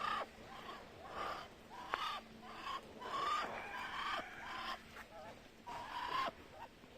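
Muscovy duck hissing: a string of short, breathy hisses, some carrying a faint tone, coming roughly once a second.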